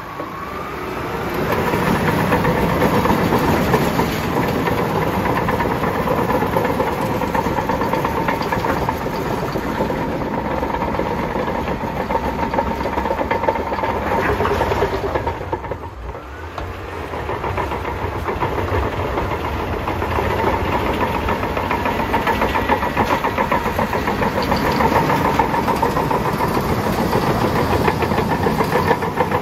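Bulldozer's diesel engine running loud and close while it works through snow. The engine swells up over the first couple of seconds, drops back briefly around the middle, then builds up again.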